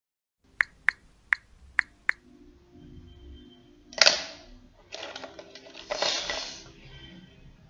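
Paintbrushes clattering into a tin pen-holder cup, loudest about four seconds in with more rattles around five and six seconds. Before that comes a quick run of five sharp ticks.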